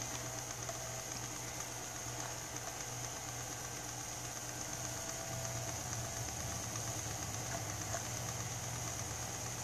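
Small electric motor of a rod-building turner running steadily, spinning the rod blank: an even low hum with a faint high whine.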